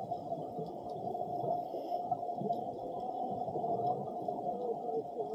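Muffled underwater ambience: a steady, noisy rumble with a steady hum, and a few wavering tones near the end.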